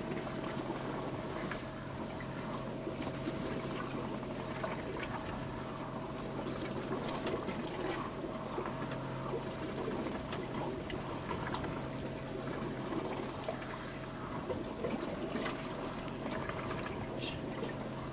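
Water splashing and trickling against the hull of a fishing boat, over a steady low machine hum from the boat.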